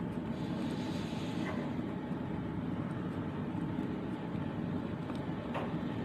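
Steady low roar of a gas stove burner on a high flame under a pot, with a couple of faint knocks of a metal ladle stirring the soup.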